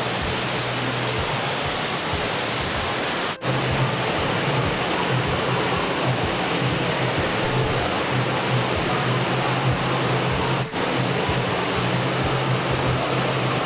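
Steady, loud rush of water pumped over an indoor surf simulator's standing wave, broken twice by brief dropouts.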